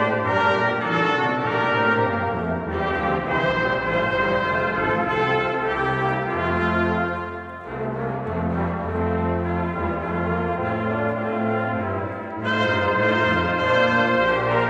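Church brass choir of trumpets and trombones playing a slow chordal piece. The high parts drop out about three seconds in, leaving the lower brass, and the full band comes back in near the end.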